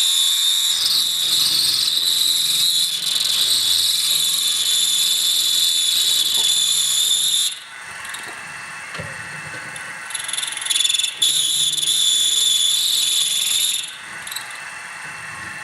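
Power drill boring the first hole in an AR lower-receiver forging: a high, squealing whine under cutting load for about seven and a half seconds. It eases off to a lower running hum, then bites again for about four seconds.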